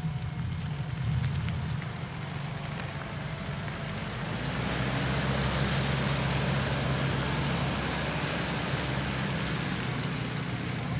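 Mitsubishi Pajero's 2.8-litre intercooler turbodiesel engine running at low revs as the 4x4 crawls along a muddy track. From about four and a half seconds in, a steady hiss of tyres in wet mud and brush against the body joins the engine as the truck draws close.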